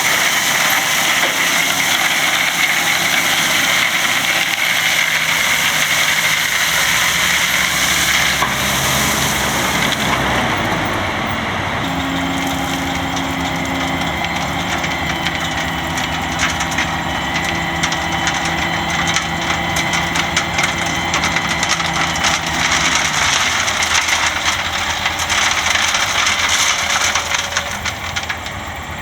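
Bulldozer's diesel engine running steadily, with many short clicks and crackles over it.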